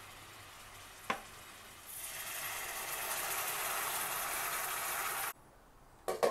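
Chicken broth poured from a carton into a hot pot of peppers, celery and onion, hissing and sizzling for about three seconds before stopping abruptly. A single knock comes about a second in, and a glass pot lid clinks a couple of times near the end.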